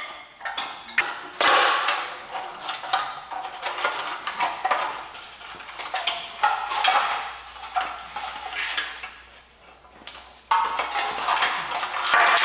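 Old wiring harness being pulled by hand off the rusty steel frame of a 1968 Datsun 520: irregular scraping and rustling as the wires drag along the frame, with metal clinks from the old retaining clips. It dies down for a moment, then comes back louder about two seconds before the end.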